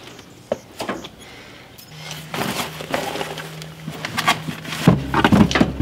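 Clicks, knocks and rattles of hands working in a pickup's engine bay to pull out a storage box. A steady low hum starts about two seconds in and gets louder near the end.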